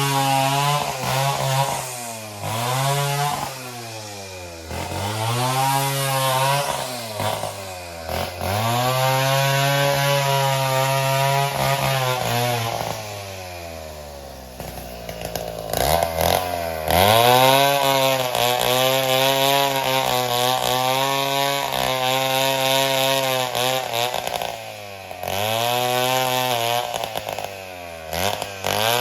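Chainsaw cutting wood, its engine revving up and dropping back over and over as the chain bites and clears. About halfway through it sinks almost to idle, then revs up hard again for more cutting.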